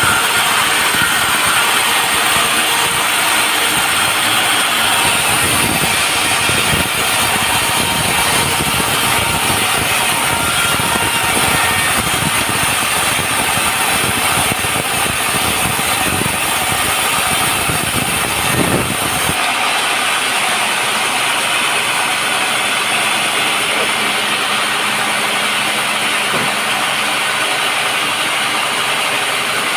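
Sawmill running and sawing a teak log, a loud, dense mechanical noise. About two-thirds of the way through, the deeper rumble drops away suddenly, leaving a steadier, thinner machine hum.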